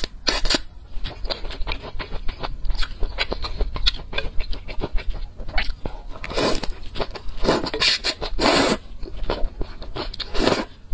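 Close-miked slurping of soupy noodles, with wet chewing and mouth clicks between slurps; the longest, loudest slurps come in the second half.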